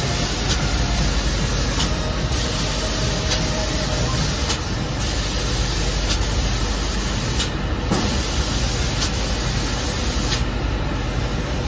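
Automatic spray-painting machine's air spray guns hissing as they coat Christmas baubles with paint, over a steady mechanical running noise. The high hiss cuts out briefly several times, with a few light clicks.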